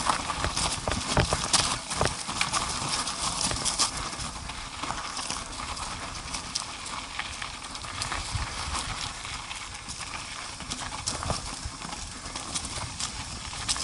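ATV jolting over a rough dirt trail: irregular clattering knocks and rattles over a steady rushing noise, busiest in the first few seconds.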